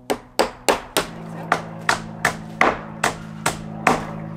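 Hammer driving nails into wooden boards: about eleven sharp blows at a steady pace of two to three a second, over a steady low hum.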